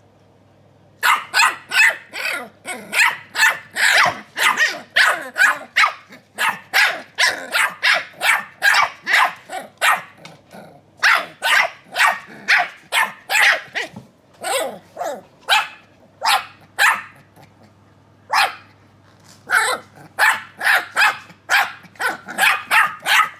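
Keeshond puppies yapping back and forth at each other: quick, high barks, about two to three a second. They start about a second in and break off briefly twice.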